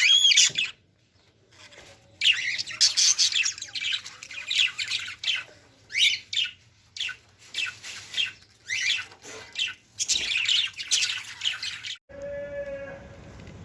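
Parrot chicks squawking in rapid, irregular bursts of raspy calls, the food-begging calls of chicks being hand fed. The calls cut off suddenly about twelve seconds in.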